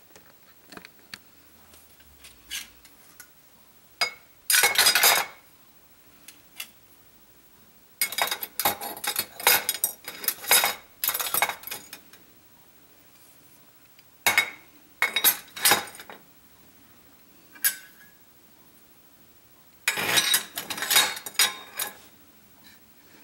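Metal kitchen utensils (whisks, spoons, a slotted turner) clinking and rattling against each other and against a ceramic utensil crock as they are put in and arranged by hand. The clatter comes in four bunches: about four seconds in, from about eight to twelve seconds, around fifteen seconds, and again near the end.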